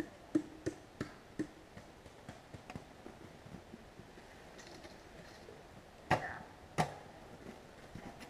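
Scattered short clicks and knocks, a quick cluster in the first second and a half and two louder knocks a little after six seconds in.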